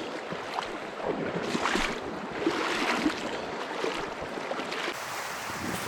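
Steady rushing of river water with wind on the microphone, and scattered short rustling noises.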